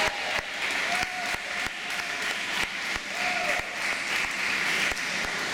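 Crowd applauding, many sharp hand claps, with a few shouted voices over the top, in the echo of an indoor pool hall.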